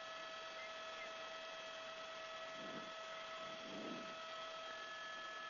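Faint steady electrical hum with hiss, several high steady tones held over it, and two faint muffled murmurs near the middle.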